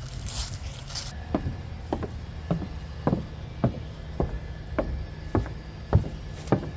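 Footsteps on a wooden boardwalk: hollow knocking steps, a little under two a second, after about a second of crunching steps underfoot.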